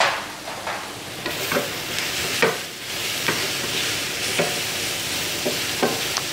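Onions, mushrooms and diced andouille sizzling in butter in a frying pan, stirred with a utensil that knocks and scrapes against the pan at irregular intervals.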